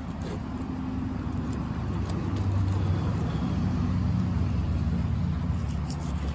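Low hum of a motor vehicle's engine running, growing a little louder about two seconds in. A few faint light ticks sit above it.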